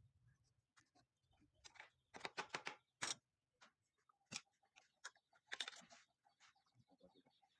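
Faint, scattered clicks and crackles in short clusters, like small hard objects being handled, over near silence.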